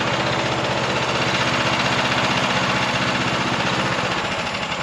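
Small gas engine of a Harbor Freight portable bandsaw sawmill running steadily, easing off a little near the end.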